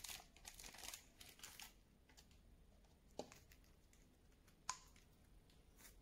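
Plastic wrapping crinkling as a syringe is handled in its packet, for the first second and a half or so, then a few light clicks and knocks of plastic things being handled on a table.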